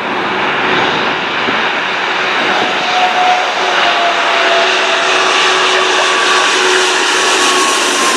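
Airbus A340-600 on final approach, its four Rolls-Royce Trent 500 turbofans making a steady jet noise with a faint whine in it, growing louder as the airliner comes in low overhead.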